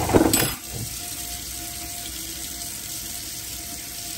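A loud clatter and splash in the first half-second, then water running steadily from a kitchen tap into a stainless steel sink.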